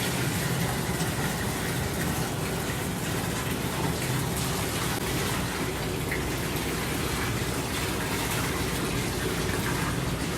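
Newly installed sump pump running just after switch-on: a steady low motor hum under the continuous rush of water being pumped out through the discharge pipe.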